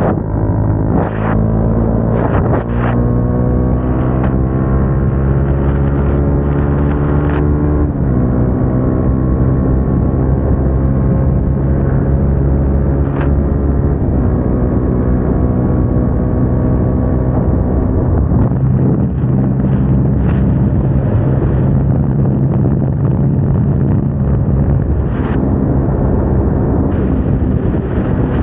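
Single-cylinder motorcycle engine with an aftermarket exhaust pulling hard under acceleration. Its pitch climbs steadily, drops at a gear change about eight seconds in, then climbs again through the next gear, with a few short sharp cracks along the way.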